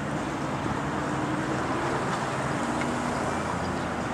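Steady outdoor rush of wind on the microphone mixed with road traffic passing along the highway, with a faint engine hum underneath.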